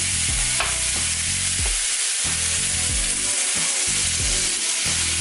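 Seared chicken and vegetables sizzling in a hot sauté pan as chicken stock is poured in from a pitcher.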